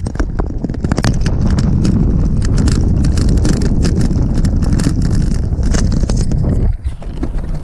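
Scooter rattling and clattering over a rough, bumpy path, with a heavy low rumble from the wheels and wind on the microphone; the rumble drops away sharply near the end.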